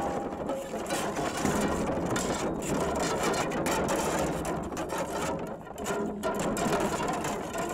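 Electro Tumbleweed, an invented instrument of carbon fiber rods on a 3D-printed PLA core, played by rubbing and scraping it against rock. It makes a dense, grainy scraping and rattling that thins briefly about five and a half seconds in.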